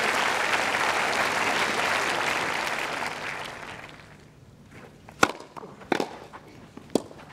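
Spectator applause on a tennis court, fading away over the first three to four seconds. Then three sharp cracks of a tennis ball being hit or bounced, the first the loudest.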